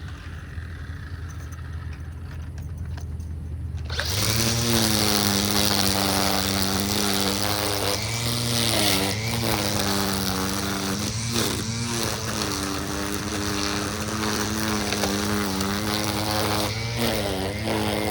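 A string trimmer starts up about four seconds in and runs at speed, its pitch sagging and recovering several times as it trims around the edges. Before that there is only a lower steady hum.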